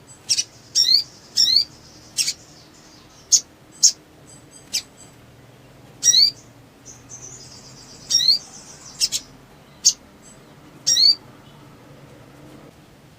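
Sogok ontong (little spiderhunter) giving short, sharp, rising chirps, singly and in quick pairs, at irregular intervals, then falling quiet for the last couple of seconds. A faint steady low hum runs underneath.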